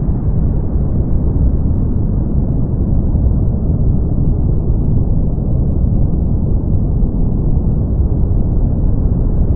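Brown noise: a steady, deep, even noise with no high hiss, unchanging throughout.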